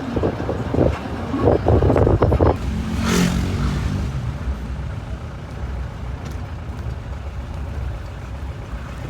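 Motor vehicle running with a steady low rumble, with voices in the first couple of seconds and a brief loud rush about three seconds in.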